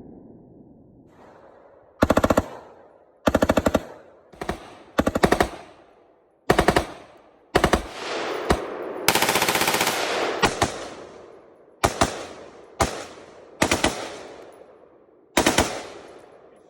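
Rapid strings of gunfire from an AR-15-style rifle fitted with an aftermarket rapid-fire trigger: about a dozen short bursts of shots fired in quick succession, the longest lasting about a second and a half near the middle, each trailing off in an echo.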